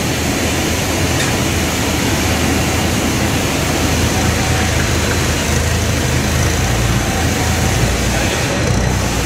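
Propane-powered Hyster forklift engine running steadily under a load, a constant low rumble with a rushing noise over it that swells somewhat in the second half.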